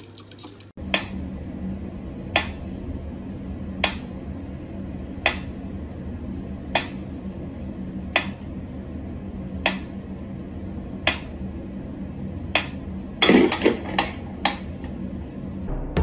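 Mechanical pendulum metronome ticking slowly and evenly, one sharp tick about every second and a half. A brief louder noise comes near the end.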